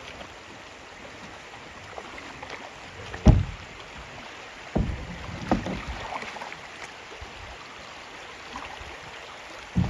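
Kayak being paddled on a river: a steady rush of moving water with a few thumps, the loudest about three seconds in.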